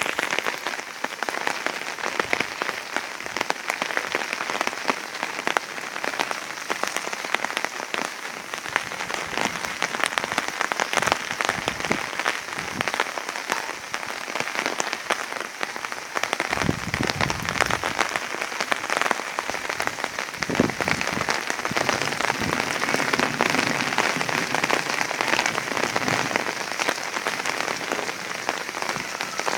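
Rain falling steadily: a dense, even hiss made of many separate drop hits. A short low rumble comes in a little past halfway.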